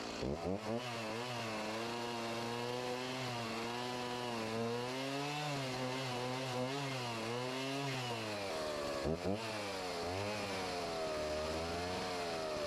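Chainsaw running while cutting out a notch in a log, its engine pitch rising and falling as it bites into the wood. It breaks off briefly about nine seconds in, then picks up again.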